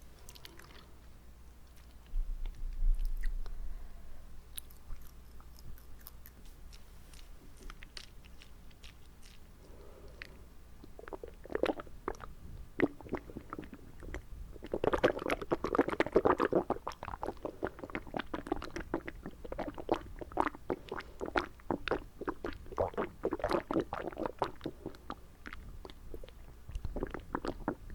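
Close-miked mouth sounds of water moving inside the mouth: quick wet clicks, smacks and squelches, sparse at first and coming in dense clusters from the middle on. There is a short low bump about three seconds in.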